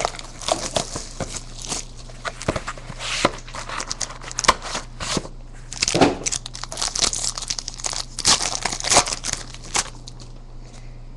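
Plastic wrapper of a trading card pack being torn open and crinkled by hand, a run of crackling snaps that eases off near the end.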